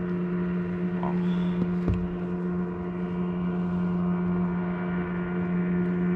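A steady low hum at one constant pitch, with a dull knock about two seconds in.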